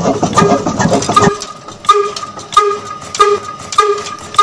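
Miniature model stationary engine running with a slow, even puffing beat, about one and a half short pitched pops a second. A busier layer of other sound underneath stops about a second in.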